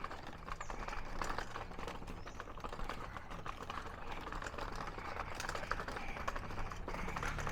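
Faint, irregular clicking and rustling over a low, steady hum.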